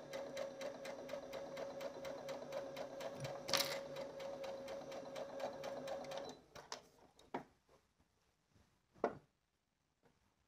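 Domestic sewing machine stitching at speed: a steady, fast run of needle strokes over the motor's hum, stopping about six seconds in. A few short clicks follow.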